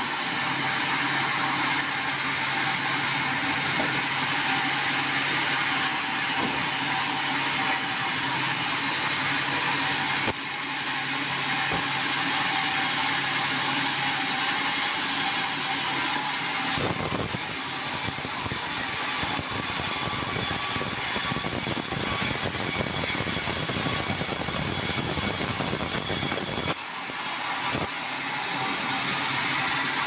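Sawmill band saw running, its blade ripping lengthwise through a red meranti log with a steady sawing noise. The sound grows fuller about halfway through.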